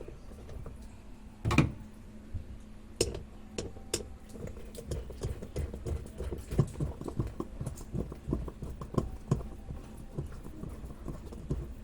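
A run of irregular light knocks and clicks, with one louder thump about a second and a half in, like hard objects being handled and set down.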